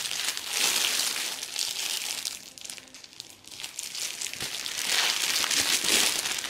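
Clear plastic wrapping around a fabric cushion cover crinkling as it is handled. The crinkling is busy for the first two seconds, eases off briefly in the middle, and picks up again for the last two seconds.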